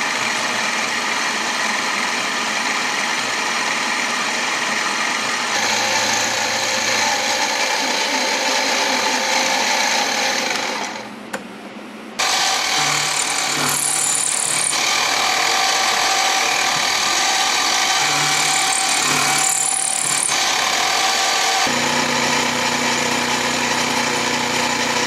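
Mini mill running with an end mill cutting a slot in a steel trigger guard blank: a steady motor whine with the rasp of the cut. The tone and level shift a few times, with a brief drop about 11 seconds in.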